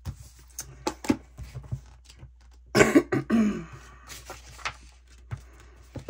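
Sheets of paper being handled and shifted on a desk, with short rustles and light taps, and a person coughing once, the loudest sound, about three seconds in.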